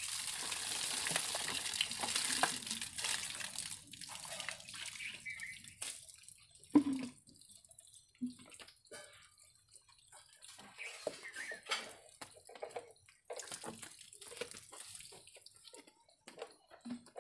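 Water gushing and splashing out of an opened drip-irrigation screen filter housing onto the ground, dying away after about four seconds. Then scattered knocks and clicks as the filter cap and plastic cartridge are handled, with one sharp knock about seven seconds in.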